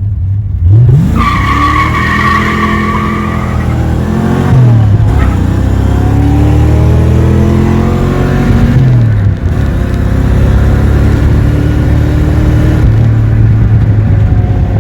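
Car engine accelerating hard, its pitch climbing and falling back twice as it shifts up through the gears, likely the Fox-body Mustang. A high squeal, likely tyres, runs over it for about three seconds near the start.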